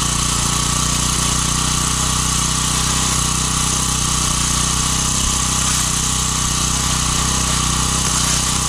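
An engine running steadily at a constant speed, with no change in pitch or load.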